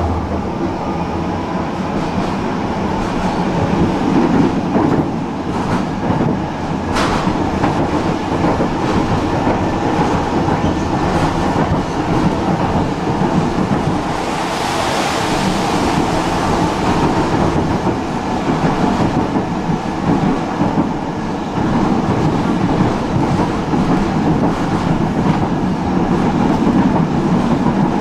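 Tram running along the track, heard from inside the car: a steady rumble of wheels and running gear with clattering over the rails. There is one sharp click about seven seconds in and a brief hiss around the middle.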